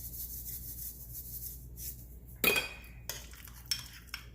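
Kitchen utensil sounds while a small bowl is seasoned: a gritty, scratchy hiss for about two seconds, then a single ringing clink of a utensil against the bowl just past the middle, followed by a few light taps.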